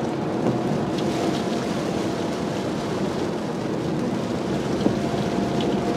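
Steady road and engine noise inside the cabin of a moving car, with a faint thin tone coming and going and a small click about five seconds in.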